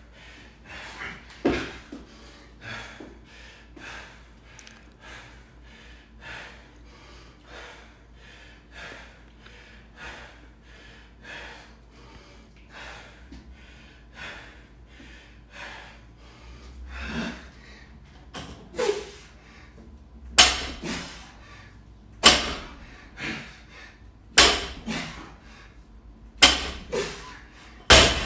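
A man panting hard, short noisy breaths about one and a half a second, winded from burpees and deadlifts. In the last third come louder sharp strokes about every two seconds.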